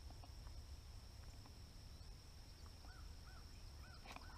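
Near-silent pondside quiet with a bird calling faintly: four short, arched notes about half a second apart in the second half.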